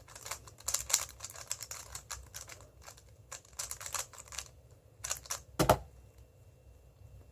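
Moyu WeiLong GTS2M 3x3 speedcube being turned fast: rapid runs of small plastic clicks as the layers snap round, with one louder clack a little over five seconds in. The turning thins out to faint sounds near the end.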